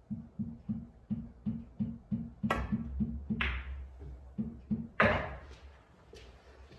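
Pool cue strikes the cue ball with a sharp click about two and a half seconds in, the cue ball clicks into the black ball about a second later while balls roll on the cloth, and about five seconds in the black ball drops into a corner pocket with the loudest knock. Soft rhythmic background music with a plucked beat plays underneath.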